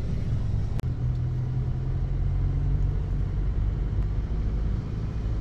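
Steady low drone of a car's engine and road noise heard from inside the cabin of a moving car.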